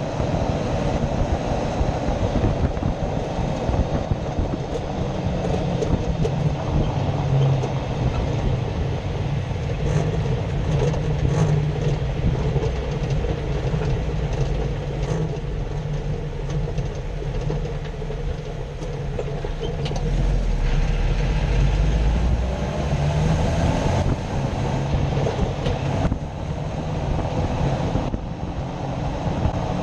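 Jeep Wrangler JK driving, heard from a camera mounted under the vehicle: steady rumble of tyres, road and drivetrain, with scattered clicks. The rumble grows louder and deeper about twenty seconds in.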